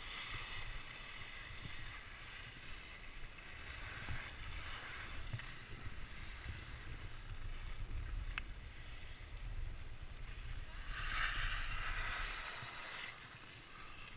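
Skis sliding and scraping over packed snow, with wind rumbling on the camera's microphone. The scraping grows louder for a couple of seconds about eleven seconds in.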